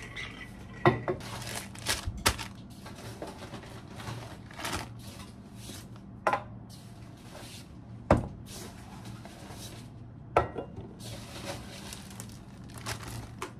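Kitchen handling sounds: containers and packaged food picked up and set down on a stainless steel counter, a string of separate knocks and clinks, the sharpest about a second in and about eight seconds in, over a steady low hum.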